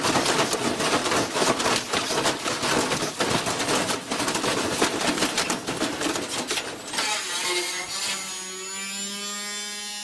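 Front-loading washing machine spinning violently off balance and shaking itself apart: a rapid, loud metallic clattering and banging of the drum against its torn casing. About seven seconds in the clatter stops and a steady held tone with several overtones takes over.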